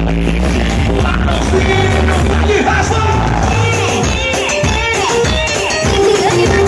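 Loud dance music with a heavy bass beat and a sung vocal, played live through a large sound system from a DJ booth.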